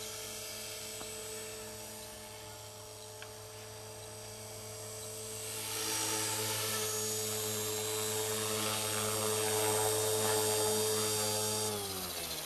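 Align T-Rex 450 Pro electric RC helicopter flying, its motor and rotor making a steady whine. The whine gets louder about halfway through, then falls in pitch near the end as the helicopter sits down on the snow and the rotor spools down.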